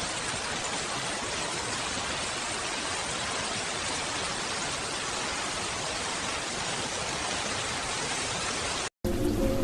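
Steady rain, an even hiss with no separate drops standing out, that cuts off suddenly near the end.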